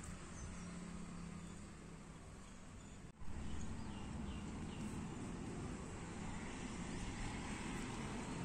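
Steady outdoor background noise with a low hum and a few faint, short bird chirps. The sound drops out for a moment about three seconds in, then comes back slightly louder.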